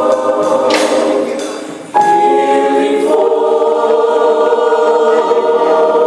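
Gospel choir singing, holding long sustained chords. About two seconds in the sound fades, then cuts abruptly into a new, loud held chord.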